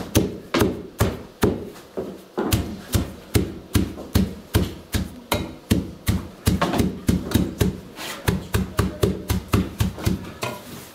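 Wooden pestle pounding freshly chopped greens in an aluminium pot, about three or four thuds a second, crushing the leaves so their juice runs and they mat together. The pounding stops near the end.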